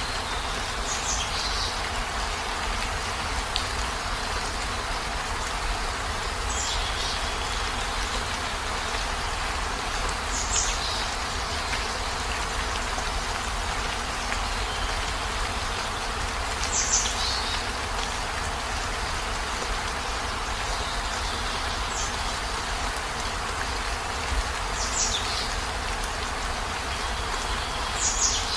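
Steady heavy rain, an even hiss of falling water. Every few seconds a brief high-pitched sound that drops slightly in pitch stands out over it.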